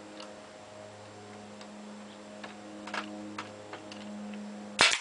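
Pneumatic air stapler held against aluminium trailer skin: a few faint clicks and taps, then one loud, sharp shot of the stapler firing near the end, over a steady low hum.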